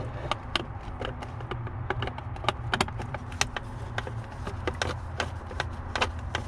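Irregular small clicks and taps of a hand tool working at screws under the steering column, several a second, over a steady low hum.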